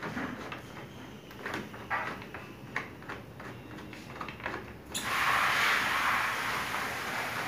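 Light clicks and scrapes of a screwdriver working a corner screw of a ceiling cassette air-conditioner panel. About five seconds in, a loud steady hiss starts suddenly and continues.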